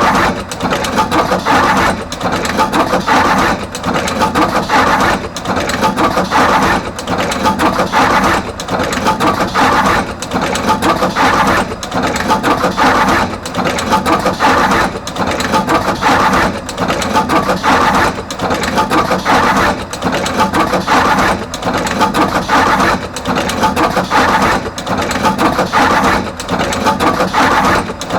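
Artos CR22 wire crimping machine running continuously, crimping terminals onto both ends of wires. It makes a loud mechanical rattle that repeats with brief regular breaks about every second or two, one for each machine cycle.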